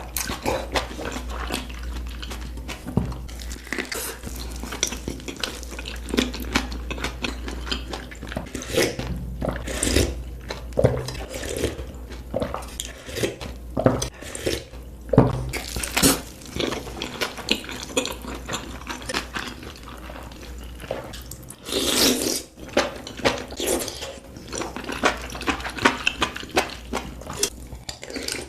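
Close-miked eating sounds from a hot pot meal: wet chewing and slurping, with utensils clicking against a bowl now and then.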